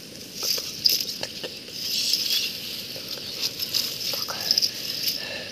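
Wet, muddy cast net rustling as it is gathered and handled over grass, with scattered light clicks over a steady high hiss.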